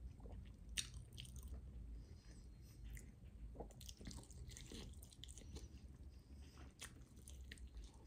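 Faint, close-up sounds of eating a roasted chicken drumstick: biting into the meat and chewing, with scattered small crunches from the crispy skin.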